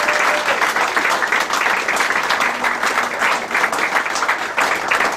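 A room full of people applauding, steady dense clapping.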